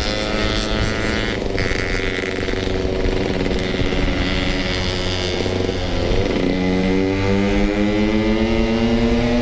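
Yamaha RX King 135cc two-stroke single-cylinder motorcycle engine under way. Its pitch eases slightly for about six seconds, dips briefly, then rises steadily as the bike accelerates.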